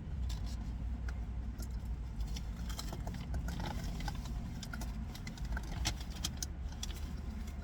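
Fast-food packaging being handled: scattered sharp crinkles and clicks over a steady low rumble.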